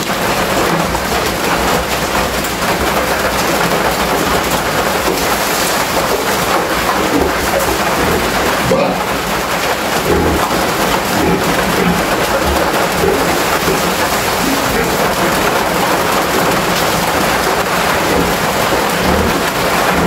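Steady heavy rain on a corrugated metal roof: a dense, even rushing noise that holds at the same loudness throughout.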